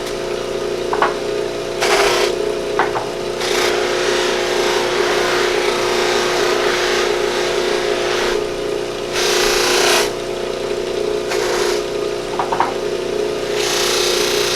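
Electric buffing wheel running with a steady motor hum, and a rushing hiss that swells and fades several times as a piece of deer antler is pressed against the spinning wheel. A few light clicks.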